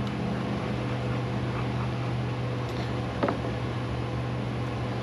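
Steady low machine hum with a fainter steady tone above it, and one brief short sound a little over three seconds in.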